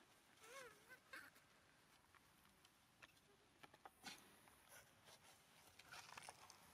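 Near silence, broken by one faint short wavering animal call about half a second in, then a few soft clicks.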